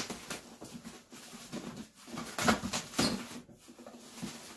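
Hands rummaging inside a cardboard shipping box: irregular rustling and scraping of cardboard and packing material, loudest a little past the middle.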